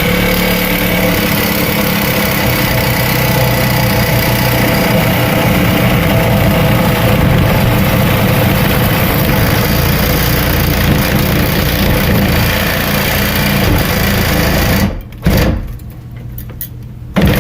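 Power saw with a carbide blade cutting through cast iron drain pipe, running steadily for about fifteen seconds, then stopping, with a short burst and a restart near the end.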